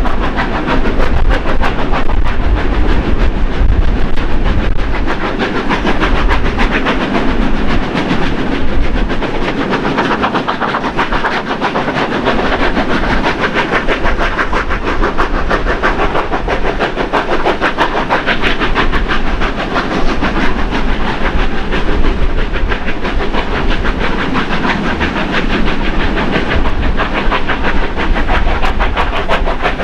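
Steam locomotives 3016 and 3642 hauling a train uphill, heard from a carriage behind them: a fast, steady run of exhaust beats mixed with wheels clattering on the rails.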